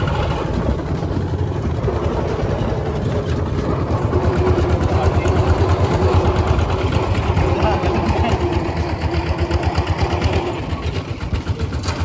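Two-wheel walking tractor's single-cylinder diesel engine chugging steadily while it tows a trailer along a dirt track.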